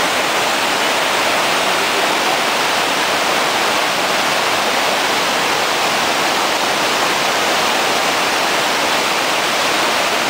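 Waterfall and mountain stream rushing over granite boulders: a loud, steady wash of white water.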